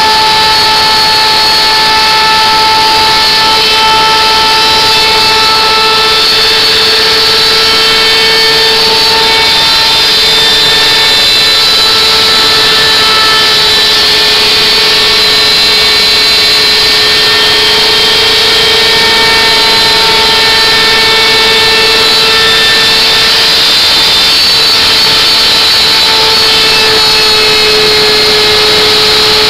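Router motor running at high speed and cutting a groove into a pine board, a loud, steady high whine over the hiss of the bit in the wood.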